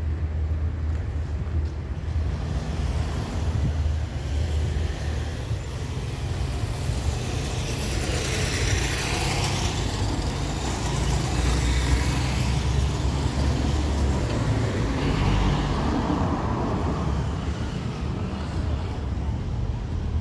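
Street traffic: a steady low engine rumble with vehicles driving past, the nearest swelling and fading about eight to ten seconds in.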